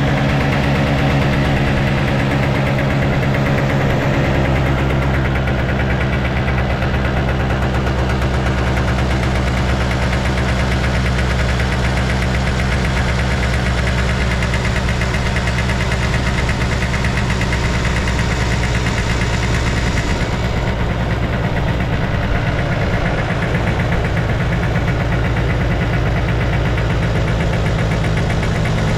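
Honda Live Dio AF35 scooter's 50 cc two-stroke engine idling steadily, with no abnormal noise from the engine according to the seller.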